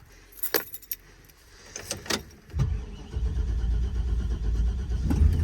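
A few clicks and knocks, then a Chevrolet square body pickup's engine starts about two and a half seconds in and runs steadily.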